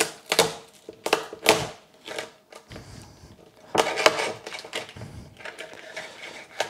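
A large kitchen knife forced down through a spiny lobster tail, the shell cracking and crunching in a run of sharp cracks, several in the first two seconds and a louder cluster about four seconds in.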